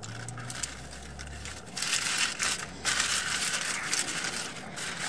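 Crackling and crinkling of yellow paper burger wrappers being handled as the burgers are held and eaten, with many small crackles, louder from about two seconds in.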